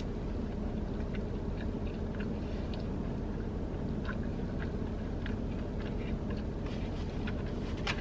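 Close-up chewing of a bite of chili cheese dog: soft, wet mouth clicks scattered throughout, with a louder smack near the end. A steady low hum runs underneath.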